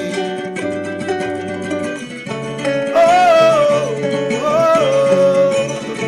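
Live performance of a pagode song: a guitar played as accompaniment, with a man singing a wordless "laia, laia" melody over it from about three seconds in.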